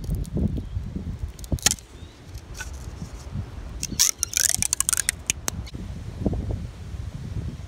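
Steel knife blade scraping and clicking against a green bamboo stalk, with a quick run of sharp scrapes about four seconds in. Wind rumbles on the microphone.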